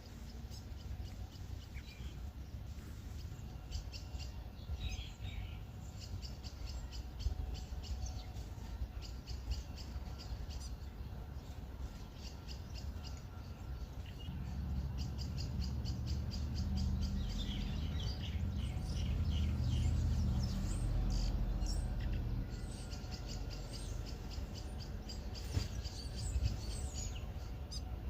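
New Zealand fantail (pīwakawaka) calling: runs of rapid, high, squeaky chirps with a few short call notes among them. A low rumble swells through the middle and is the loudest sound.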